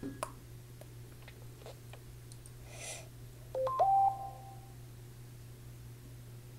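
Short Apple iPhone alert tone: three quick electronic notes, the last one held for about a second, sounding about three and a half seconds in. A few faint clicks come before it, over a steady low hum.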